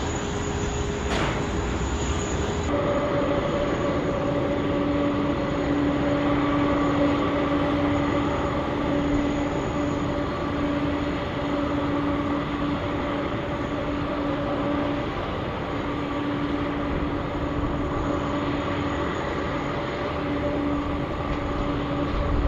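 A loud, steady rumble of heavy engine noise with a droning hum of several steady pitches, which sets in suddenly about three seconds in.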